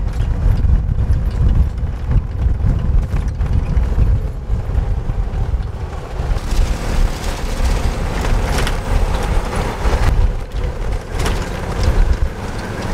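Open golf cart driving along a paved street: a low, uneven rumble of the cart and the road, with a hiss that grows from about halfway through.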